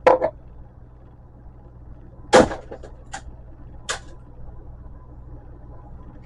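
A single sharp knock a couple of seconds in, then two lighter clicks, from metal parts of a light fixture being handled during a teardown.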